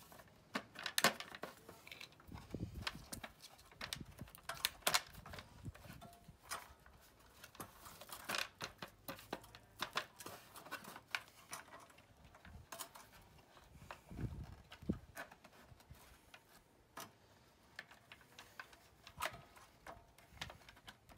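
Irregular clicks, rattles and light knocks of wiring, connectors and plastic being handled as a throttle cable is pulled out through the grommets of an electric scooter's frame, with a couple of soft low thumps.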